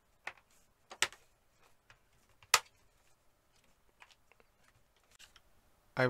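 Plastic clips of a Lenovo IdeaPad S340-14API's bottom cover snapping into place as the cover is pressed down: several sharp clicks, the loudest about two and a half seconds in.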